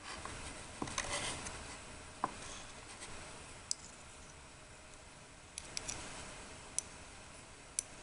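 Close-up handling noise of miniature cooking: light scraping and rustling with a few sharp, separate clicks and taps of small utensils.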